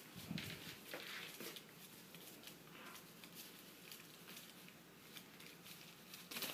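Faint scratching and light tapping of a green-cheeked conure's claws and beak as it climbs, with a soft thump near the start and a sharper click near the end.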